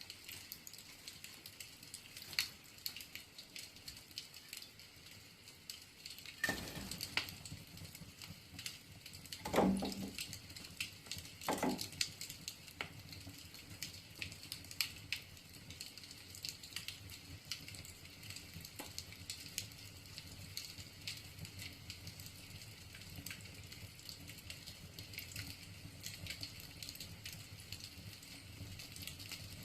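Wood fire crackling in a fireplace: a steady scatter of sharp pops and snaps, with a few louder, fuller cracks about six and a half, ten and twelve seconds in.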